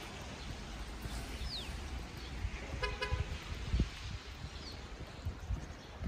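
A car horn giving a short double toot about halfway through, over a steady low street rumble.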